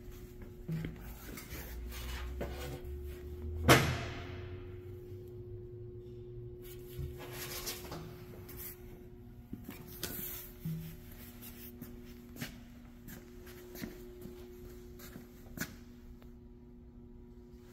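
A steady low hum, with scattered light knocks and clicks and one loud sharp clank a little under four seconds in whose ring dies away over a couple of seconds.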